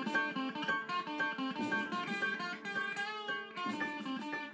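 Opening theme music led by guitar: a quick run of plucked notes.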